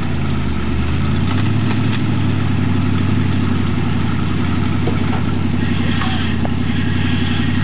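Truck engine running steadily. Its note shifts during the first couple of seconds, then holds even.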